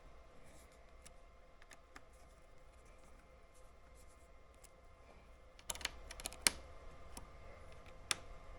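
A new motorcycle fuel pump being pushed and clicked into place by hand: a few small scattered clicks, then a quick cluster of sharper plastic clicks and knocks about six seconds in, and one more near the end.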